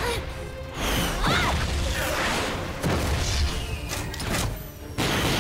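Cartoon action soundtrack: music mixed with sci-fi sound effects. A tone sweeps up and back down about a second in, and sudden loud hits come a few times.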